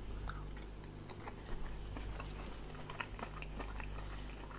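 A mouthful of peas and vegetables being chewed: faint, irregular soft clicks of biting and chewing over a low steady hum.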